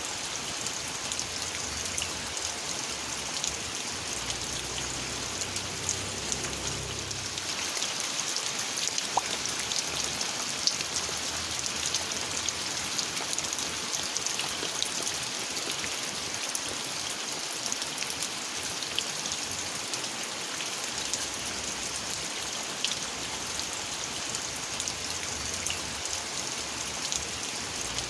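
Steady rain falling, with many individual drops striking close by. A faint low rumble underneath dies away about seven seconds in.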